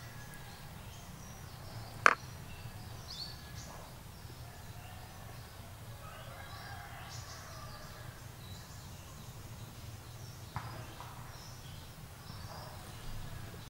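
Outdoor forest ambience with scattered short bird chirps over a steady low background hum. A single sharp click about two seconds in is the loudest sound, with a softer click later.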